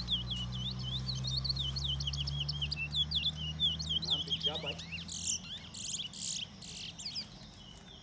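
Caged songbird singing a fast string of chirps and trills, ending with a few higher, louder notes. A low steady hum underneath stops about five seconds in.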